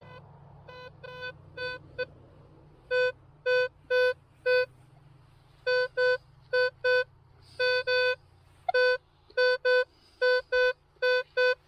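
Minelab Equinox 900 metal detector beeping: short beeps all on the same mid pitch, coming in quick runs of two to five, loudest from about three seconds in, as it sounds off on a buried target.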